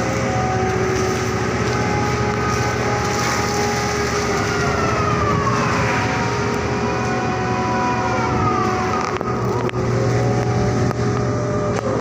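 Crane machinery running during grab loading: a constant engine hum under whining tones that slide down in pitch and back up more than once as the machinery changes speed, with a few sharp knocks near the end.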